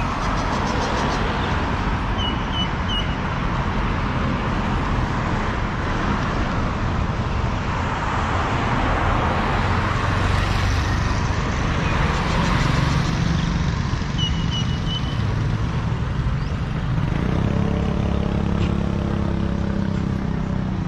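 Steady road traffic with motor-vehicle engines running close by. Near the end an engine idles nearby with a steady low hum.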